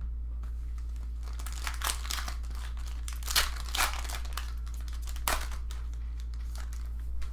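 Foil card-pack wrapper crinkling and being torn open by hand, in a string of crackles with a few sharper rips about halfway through, over a steady low electrical hum.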